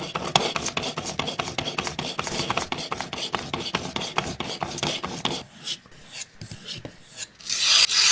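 Knife blade scraped in rapid back-and-forth strokes across a fine ceramic sharpening stone, a dry rasping rub: the fine-tuning stage of sharpening. The strokes thin out about five seconds in, and a louder hiss follows near the end.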